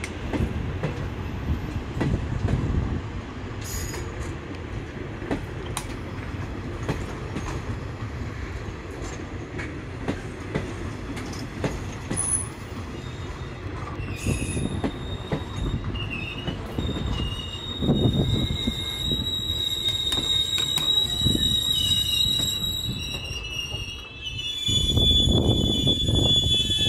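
Shosholoza Meyl passenger coaches rolling past, with a low rumble and wheels clicking over the rail joints. From about halfway through, high thin wheel squeal rings out over the rumble and keeps on to the end.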